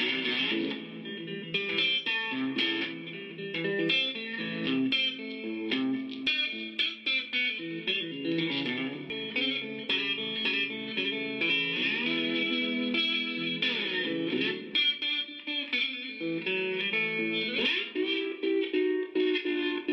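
Background music: electric guitar playing a run of plucked notes with some bends.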